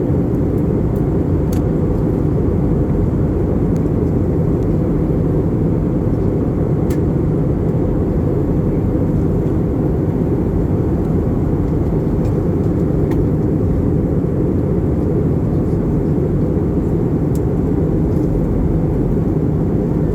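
Steady cabin noise of an Airbus A320 descending on approach: an even, low roar of the engines and airflow. A few faint clicks sound over it.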